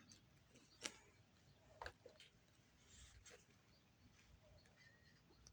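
Near silence with a few faint, brief clicks.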